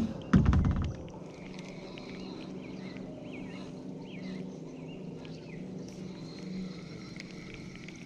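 A single low thump about half a second in, then birds chirping over the quiet backdrop of a still lake.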